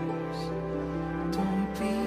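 Slow, tender background music with sustained held notes.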